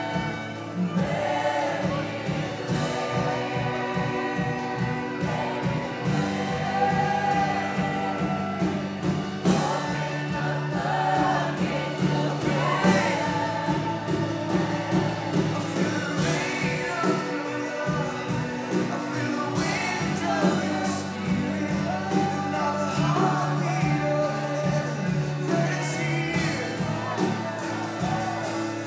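Church worship music: voices singing over sustained low chords that shift every few seconds.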